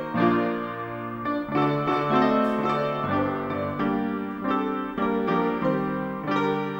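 Piano music: a run of sustained notes and chords, the notes changing about every half second.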